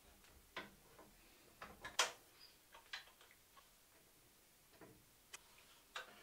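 Scattered light clicks and knocks as a long level is set against a cabinet saw's fence rail and held with one-handed bar clamps; one sharp click about two seconds in is the loudest.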